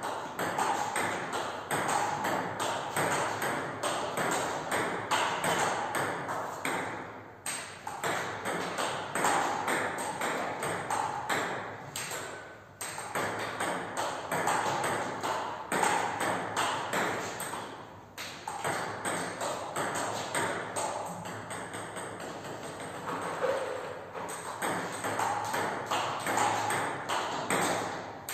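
Table tennis balls clicking sharply off bats and bouncing on the table in fast, continuous hitting, broken by a few short pauses.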